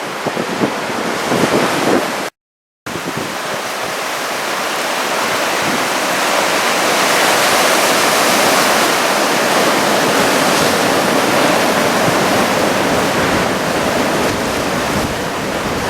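Heavy storm surf from typhoon-driven big waves, with wind buffeting the microphone. About two seconds in, the sound cuts out completely for half a second, then comes back as a steady rush of surf and wind that swells in the middle.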